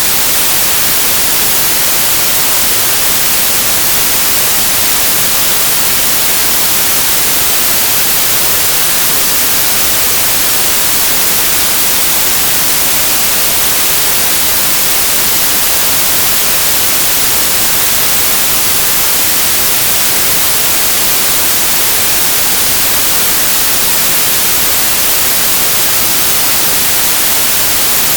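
Steady, unchanging white-noise hiss, loud and even, brightest in the high end, with no rise, fall or breaks.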